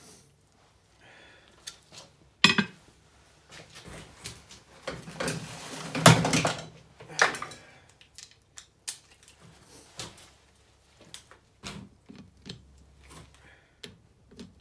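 Steel hand tools and sockets clinking and clattering while the crown wheel bolts of a differential carrier held in a vise are worked on. There is a sharp clank about two and a half seconds in, a longer spell of clattering around the middle (the loudest part), then scattered light clicks and taps.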